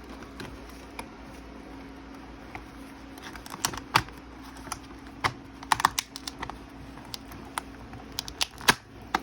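A run of sharp, irregular clicks and taps from small hard parts being handled, mostly in the second half, with the loudest about four seconds in and near the end. A faint steady hum runs underneath.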